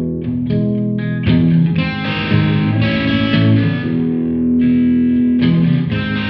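Two electric guitars playing chords together, notes ringing and changing, with a fresh chord struck about a second in.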